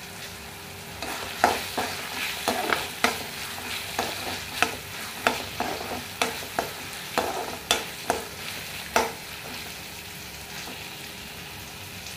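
Stirring a thick frying masala in a kadhai: a utensil scrapes and knocks against the pan in an irregular run of clicks over a low sizzle. The stirring stops about nine seconds in, leaving the sizzle.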